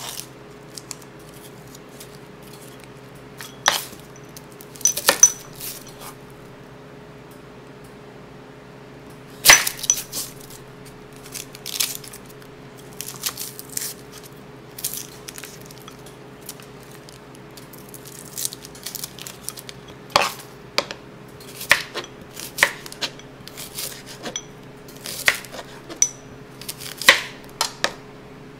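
Kitchen knife knocking on a cutting board while shallots are peeled and cut: a few scattered knocks, the loudest about ten seconds in, then steady chopping of about one cut a second from about twenty seconds in. A faint steady hum runs underneath.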